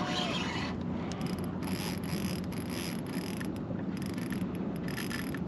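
Fishing reel clicking and ratcheting in several short bursts while a heavy fish is being fought on the line.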